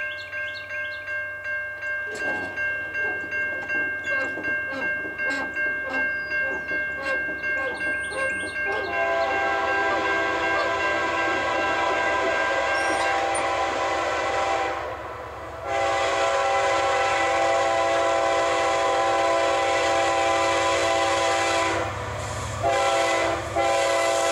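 Grade-crossing bell ringing about twice a second. From about nine seconds in, the air horn of an approaching CSX GE CW44AC locomotive takes over, sounding the grade-crossing signal: two long blasts, a short one, and the start of a final long blast.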